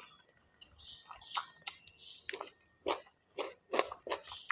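A person chewing food with crunches and wet mouth sounds. The chews settle into a run of about two to three a second from about halfway through.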